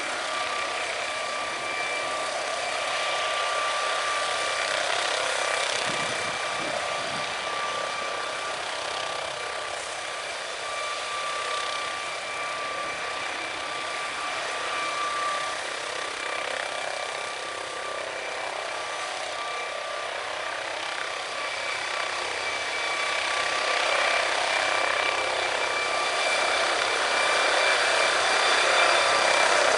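MD 902 Explorer helicopter's twin turboshaft engines and rotor running with a steady high turbine whine while it sits on the ground, growing louder over the last several seconds as it lifts off.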